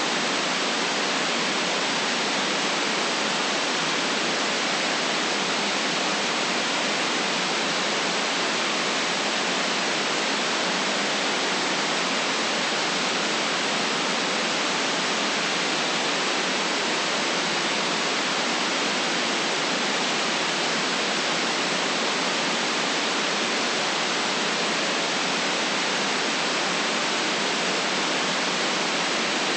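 Steady white noise: an even, unchanging hiss, band-limited between roughly the low bass and the upper treble, with no other sounds in it.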